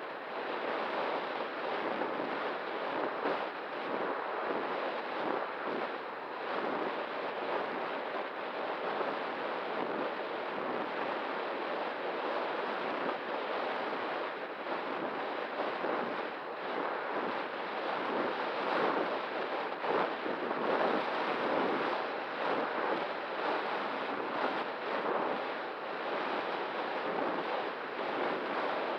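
Steady rushing wind noise of airflow over the E-flite Night Radian glider's onboard FPV camera microphone in flight, with a faint steady hum underneath.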